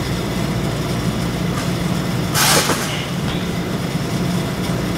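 Steady low hum, with one brief rushing thud about two and a half seconds in: a gymnast landing a back handspring on the tumble track's mats.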